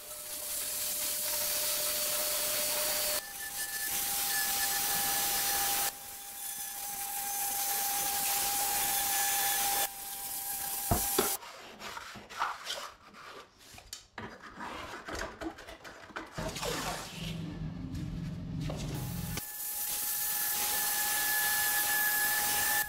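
Handheld angle grinder cutting and grinding the edge of a countertop sink cutout: dense grinding noise with a steady whine. About halfway through it stops for several seconds of quieter scraping, rubbing and clicks, then the grinder starts again near the end.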